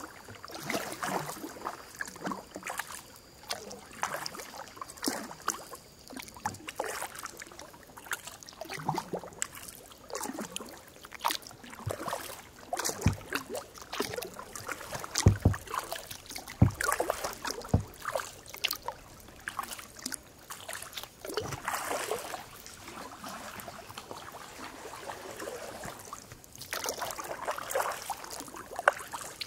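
Kayak paddle strokes in calm water, splashing and dripping every second or two, with a few dull knocks around the middle.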